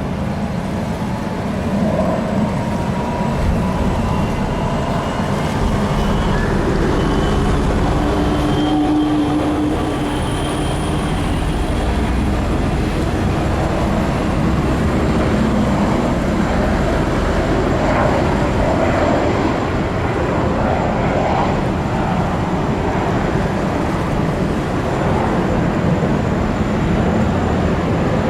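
Boeing 929 Jetfoil's twin Allison 501-KF gas turbines running: a loud, steady rushing roar with a thin high whine held over it.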